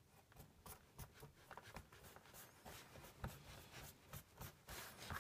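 Fingers sifting through damp shredded-paper worm bedding on a plastic tray: faint, irregular rustling with light crackles.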